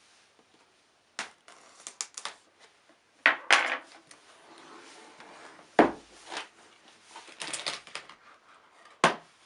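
MacBook Pro retail box being handled and opened: scattered knocks, scrapes and rustles of the packaging, with sharper knocks about a third of the way in, past halfway and near the end.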